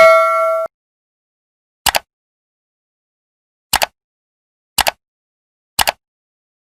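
The tail of a bell-like chime rings and fades, then cuts off suddenly under a second in. Four short double clicks follow, spaced one to two seconds apart, with dead silence between them.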